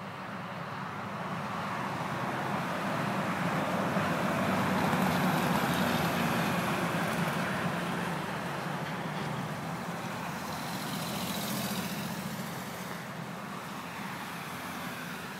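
Road traffic passing: the tyre and engine noise of a vehicle swells gradually to a peak about five seconds in and fades away, followed by a second, smaller pass later on.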